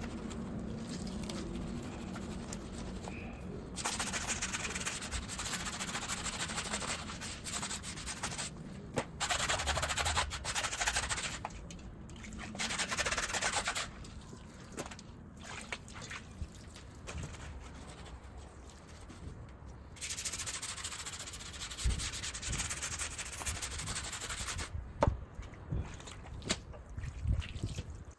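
Upholstery extractor (seat-washing machine) sucking dirty water out of a fabric car seat: long stretches of hiss, each a few seconds, as the nozzle is drawn over the wet cloth, with quieter pauses between passes.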